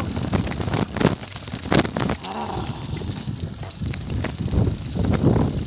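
Mountain bike rattling and knocking over a rough downhill dirt trail: irregular jolts and clunks over a steady low rumble.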